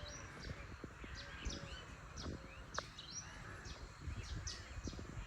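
Birds chirping: many short, high chirps, several a second, over a low rumbling noise.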